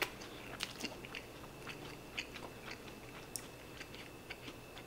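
Close-miked chewing of a mouthful of egg and rice: small irregular mouth clicks and smacks, with a sharper click right at the start.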